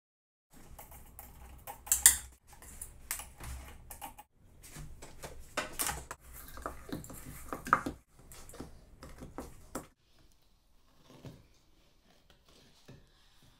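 Utensils clicking, scraping and knocking against a stainless steel mixing bowl and the stand mixer's beaters as cookie dough is worked: a quick run of clatters that stops abruptly several times. In the last few seconds there are fainter, sparser knocks as a wooden spoon stirs thick cookie dough by hand.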